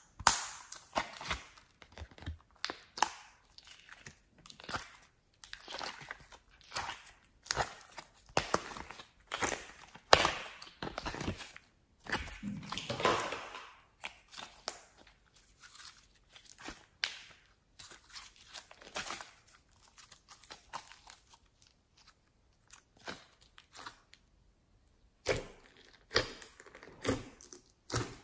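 Hands kneading, pressing and stretching glossy slime studded with beads in a glass dish: irregular sticky crackles, pops and tearing sounds. They come thickest about halfway through, thin out in the later part and pick up again near the end.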